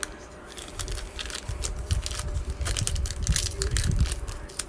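Plastic wrapper of a trading-card pack crinkling and crackling in irregular bursts as it is pulled and torn at; the pack is hard to open.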